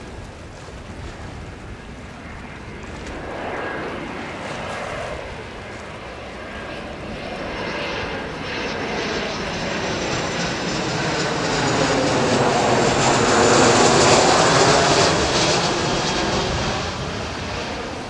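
Boeing 737-400 turbofan engines on final approach as the jet passes low overhead. The sound grows louder, peaks about three-quarters of the way through and then fades, with its whine falling in pitch as it goes by.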